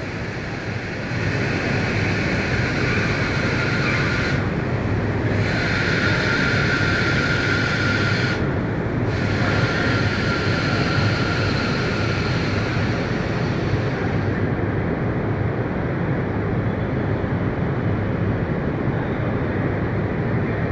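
Chevrolet Cruze running on the rollers of an end-of-line test booth, a steady noise of the car and the spinning rollers. A higher hiss over it cuts out twice briefly and dies away a little past halfway, and the top end drops off soon after.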